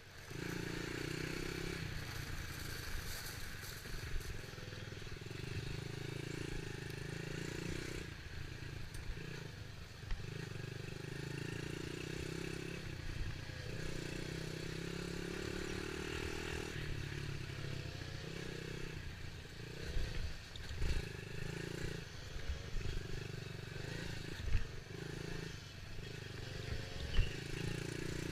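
Dirt bike engine being ridden, running in repeated stretches as the throttle is opened and closed every second or few. Several low thumps come in the later part.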